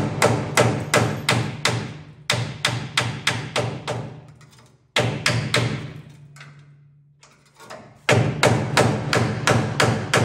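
Hammer striking a chisel held against a spot weld on the steel hinge pillar cap of a 1963 Corvette, in rapid runs of about five blows a second, with a lull of about three seconds in the middle. The spot weld is very difficult to chisel off.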